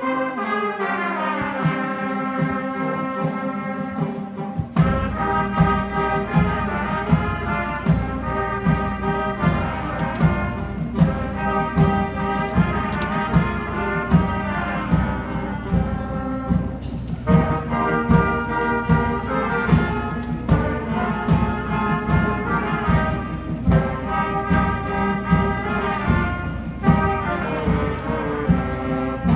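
Middle school concert band of brass and woodwinds (trumpets, saxophones, clarinets) playing a piece in unison, with percussion adding a steady beat that comes in about five seconds in.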